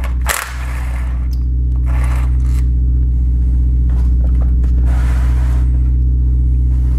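A steady, loud low machine hum with a buzzing rattle runs throughout. Over it come a few short scrapes and clicks of hand tools on the transmission's metal valve body: right at the start, about two seconds in, and about five seconds in.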